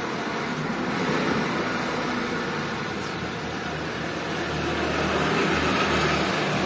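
Road traffic: a minibus's engine running as the bus pulls slowly away, with motorcycles passing and growing louder as one rides close by about five seconds in.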